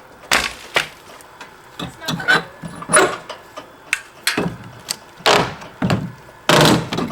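Old wood house siding being torn off the wall: irregular wooden knocks, cracks and clatters, about eight of them, spaced unevenly.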